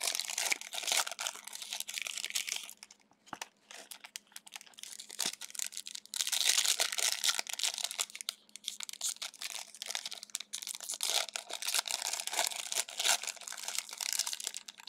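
Crinkling and tearing of a Donruss basketball card pack's wrapper as the pack is opened and handled. The crinkling comes in spells, loudest over the first few seconds and again from about six seconds in, with sparser crackles between.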